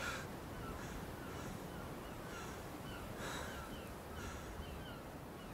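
Birds calling outdoors: harsh, caw-like calls several times, with many faint high chirps between them, over a steady low background noise.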